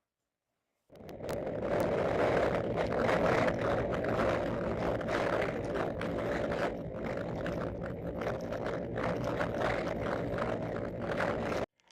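Honda PCX150 scooter's single-cylinder engine running steadily while riding, with wind buffeting the microphone. It starts about a second in and cuts off abruptly near the end.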